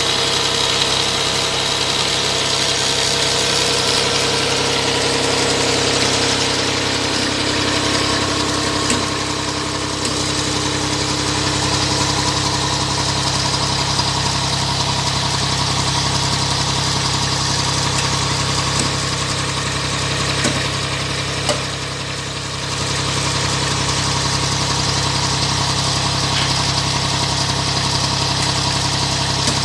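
Engine of an 18 HP compact tractor running steadily, driving a generator armature on a stand through its PTO shaft and belt pulley. The sound dips briefly about two-thirds of the way through, then steadies again.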